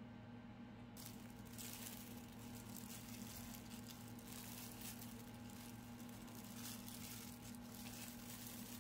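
Faint sizzle of pancake batter cooking in a frying pan, with an even crackle starting about a second in over a steady low hum.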